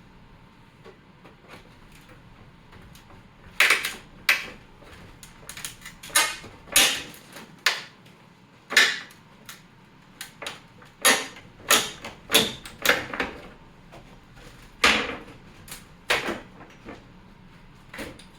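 A wooden box being pried apart with a pry bar: irregular sharp knocks and cracks of wood and nailed joints giving way, starting about three and a half seconds in.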